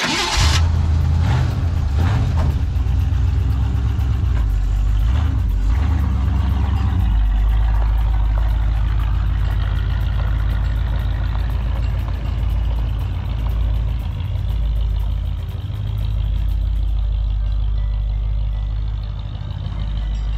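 Old Ford pickup truck's engine starting with a sudden loud burst, then running with a steady low rumble as the truck drives off.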